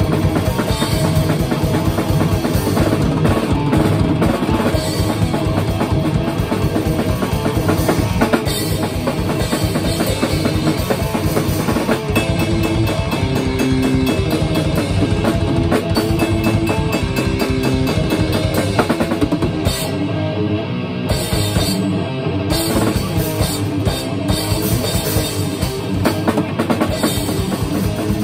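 Instrumental rock played on electric guitar and drum kit: guitar riffing over fast, steady bass-drum beats, snare and cymbals. The bass drum drops out for a moment twice, about twenty seconds in.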